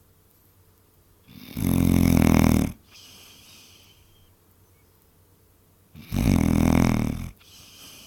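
Basset hound snoring in its sleep: two loud rattling snores about four and a half seconds apart, each lasting about a second and followed by a fainter, higher breathy whistle.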